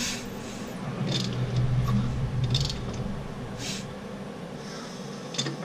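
Several short hisses of air squeezing out past a finger held over cylinder one's spark plug hole on a Ford 289 V8 as the crankshaft is turned by hand, the piston rising on its compression stroke. A low steady hum runs underneath.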